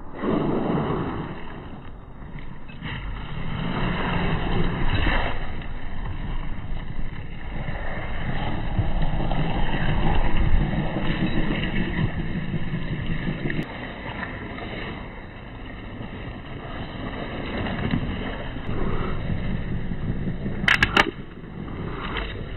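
Radio-controlled scale 4x4 truck driving over loose gravel and dirt: its small drivetrain running and its tyres crunching on stones, swelling and easing as it goes. A couple of sharp clicks come near the end.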